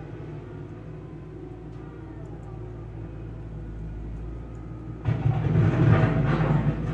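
Vehicle engine running steadily with a low hum, growing much louder and rougher about five seconds in.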